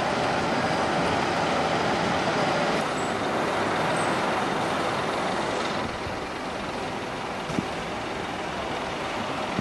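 Traffic and bus engines running, a steady road noise that is a little louder for the first three seconds and eases off about six seconds in. A short sharp click sounds near the end.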